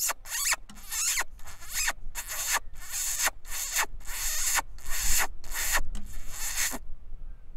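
A fox whistle blown in about ten short, shrill squealing bursts, each falling in pitch, stopping near the end: a rabbit-distress call used to draw in or stop a fox before a shot.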